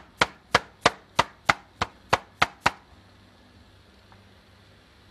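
Meat mallet with a ridged metal head pounding raw chicken pieces on a board to tenderise them: about ten sharp, even blows, roughly three a second, stopping a little under three seconds in.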